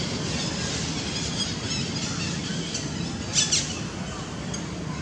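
Outdoor ambience of birds chirping over a steady low hum, with one short, loud, high-pitched squeal about three and a half seconds in.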